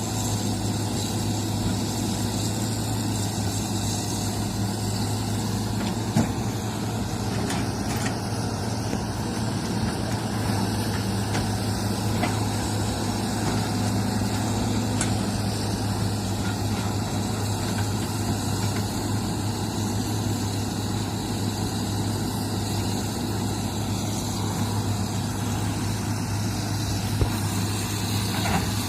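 Heavy diesel engine of earth-moving equipment running steadily with a low, even hum, with two short sharp knocks, one early on and one near the end.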